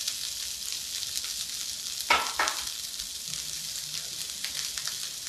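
Rice frying in hot oil in a skillet: a steady sizzle with scattered crackles, and two knocks about two seconds in.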